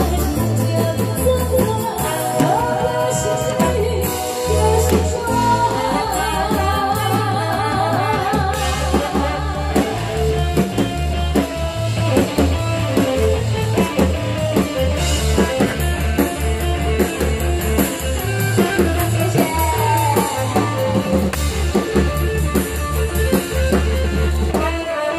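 Amplified live music: a woman singing a Taiwanese pop song over a band with drum kit and bass keeping a steady beat.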